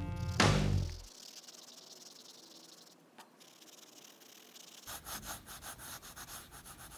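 Background music ends in the first second. After a quiet stretch, a coloured pencil scratches across sketchbook paper in quick back-and-forth shading strokes, about three a second, from about five seconds in.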